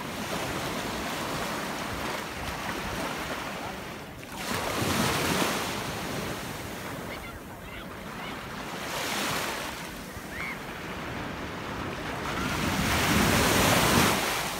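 Surf breaking and washing up the sand, swelling louder three times, about 5, 9 and 13 seconds in, with wind buffeting the microphone.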